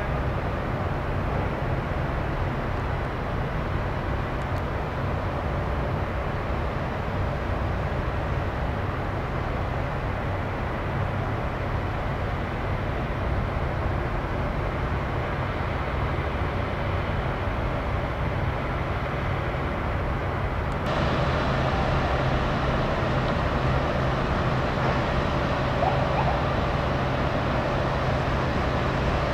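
Steady outdoor city background noise: a low traffic rumble with a hum beneath it, growing a little louder about two-thirds of the way through.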